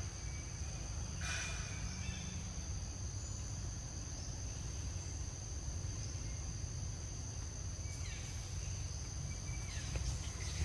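Steady high-pitched insect chorus droning continuously over a low steady rumble, with a few short chirping calls about a second in and again near the end.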